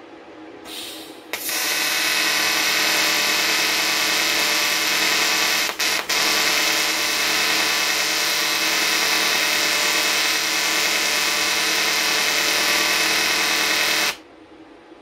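AC TIG welding arc on aluminium, the machine set to 150 Hz: a brief hiss about a second in, then a steady, loud buzz that breaks twice for an instant near the middle and cuts off suddenly near the end.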